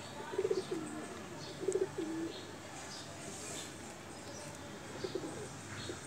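Pigeon cooing: a few low cooing phrases, mostly in the first two seconds and again near the end, with faint higher bird chirps in between.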